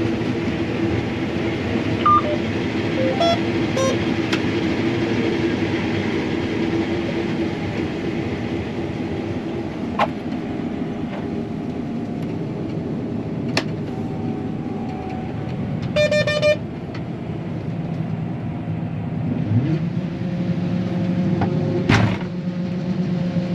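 Combine harvester running steadily while harvesting soybeans, a constant machine hum. There are a few short electronic beeps, and a cluster of them about two-thirds of the way through. Near the end the hum rises in pitch as the machine speeds up.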